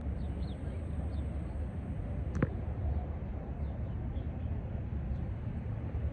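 City street ambience: a steady low rumble of traffic and wind on the phone's microphone, with faint bird chirps and a single sharp click about two and a half seconds in.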